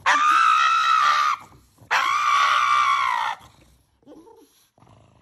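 Pug screaming at having its nails clipped: two long, loud, high-pitched screams of about a second and a half each, the second following half a second after the first.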